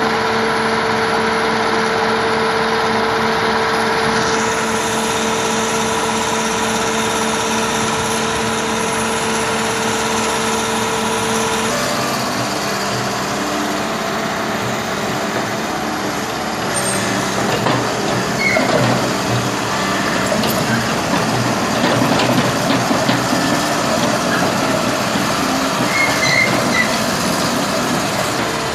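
Backhoe diesel engine running, with its steady note shifting abruptly about twelve seconds in and irregular clanking joining in the second half.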